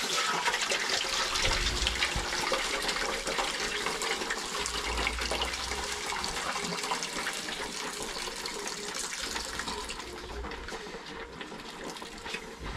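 Water poured from a basin through a plastic sieve into a metal saucepan, straining off the soaking water from soaked seeds: a steady splashing stream that grows fainter near the end.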